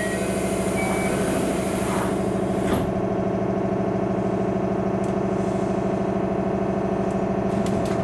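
Steady multi-tone electrical hum from the onboard equipment of a JNR 213 series electric train car, heard inside the passenger cabin. Its pitch holds steady throughout, and there is a single knock near three seconds in.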